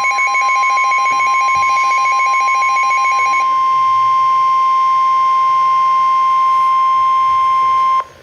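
NOAA Weather Radio warning alarm tone: a loud, steady single tone of about 1050 Hz announcing a severe thunderstorm warning. For the first three and a half seconds a second, rapidly pulsing beep sounds over it. The tone cuts off suddenly about eight seconds in.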